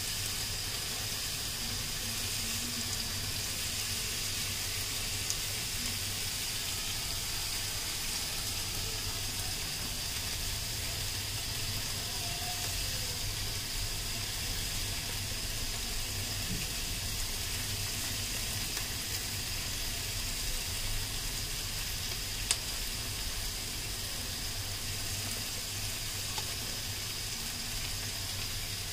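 Noodles boiling in a steel pan of water: a steady bubbling hiss, with a few light clicks of metal tongs against the pan as the noodles are stirred.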